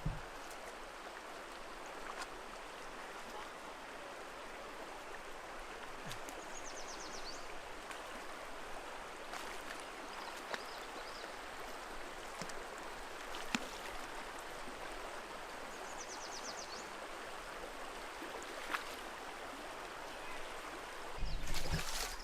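Shallow, rocky stream running steadily, with a few faint clicks. A short high buzzing trill comes twice, and the noise swells louder briefly near the end.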